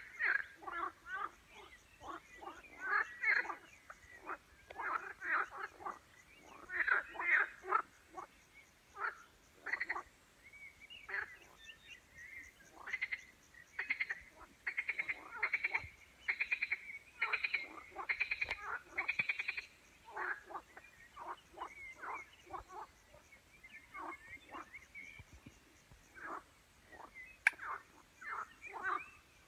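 A chorus of frogs croaking among the reeds: many overlapping short calls and quick runs of pulsed croaks, rising and falling in activity without stopping.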